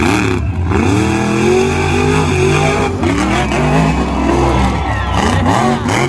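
Monster truck engine revving hard, the revs climbing and dropping again and again as the truck is driven through its freestyle run.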